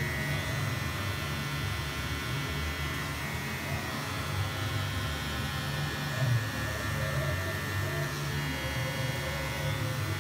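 Electric hair clippers buzzing steadily as they cut a child's hair short at the back and side of the head.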